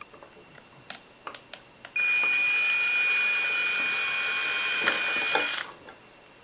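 Cordless drill running steadily for about three and a half seconds with a high whine, its small bit drilling a pilot hole through the thin painted plastic of a model truck cab, then stopping. A few light handling clicks come before it starts.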